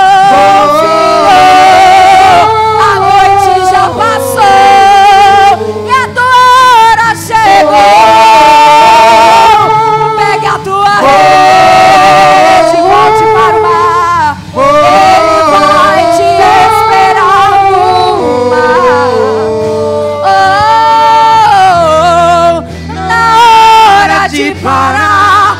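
Live gospel worship singing: a voice holds long wordless notes with vibrato, sliding between pitches, over instrumental accompaniment with sustained low bass notes.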